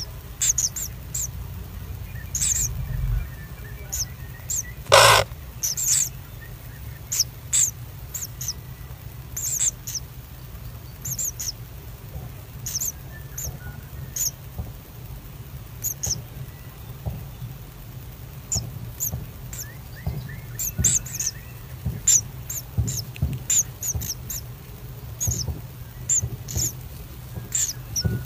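Common kingfisher adult and nestlings in their nest burrow: many short, high chirps at irregular intervals, with one louder, harsher call about five seconds in. A low steady hum runs underneath.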